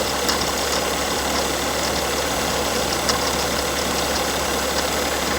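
BMW E60's engine idling with a persistent metallic grinding from the front accessory drive, where the alternator and power steering pump sit, with a few faint ticks. The owner suspects a worn bearing in the alternator or the power steering pump, both original parts at 192k miles.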